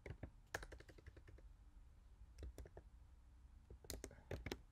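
Faint computer keyboard typing: quick runs of keystrokes, one in the first second or so, a few more in the middle and another near the end, with short pauses between.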